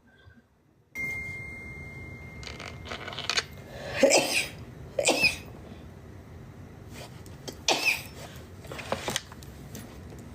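A woman sneezing repeatedly in a fit: about four short, sharp sneezes a second or so apart, with quieter sounds between them.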